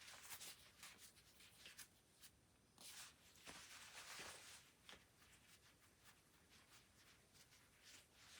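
Typing on a PCL87 mechanical keyboard with lubed switches and stabilisers and tape-and-foam dampening: soft, muted keystroke clicks in quick runs, with a denser burst around three to four seconds in, then sparser strokes.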